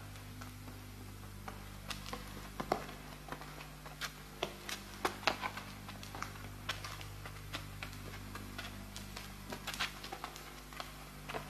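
Footsteps of several people walking together: an irregular patter of light taps, a few each second, over a steady low hum.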